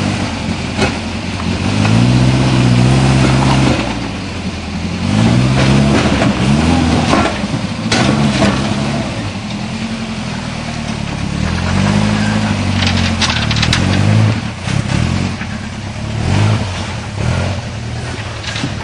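Off-road 4x4 engine revving in repeated surges, its pitch climbing and dropping again and again, with a few sharp knocks.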